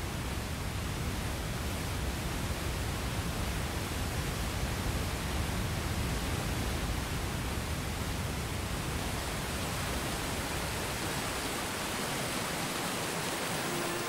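Waterfall: a steady, even rush of water falling over rock.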